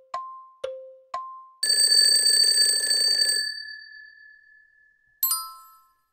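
Countdown-timer sound effect: ticks alternating high and low, two a second. About one and a half seconds in, a loud rattling bell rings for nearly two seconds to signal that time is up, its tone fading away. Near the end a single bright chime sounds as the answer is revealed.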